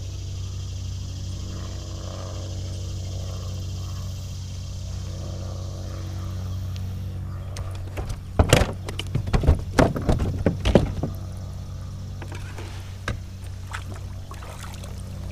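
Knocks and clatter of gear being handled aboard a fishing kayak, in a burst from about eight to eleven seconds in and a few more near the end, over a steady low hum.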